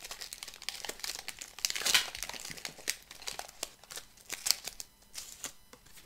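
Foil wrapper of a Pokémon booster pack crinkling as it is handled by hand and the cards are slid out. The crackles are densest and loudest in the first two seconds and thin out toward the end.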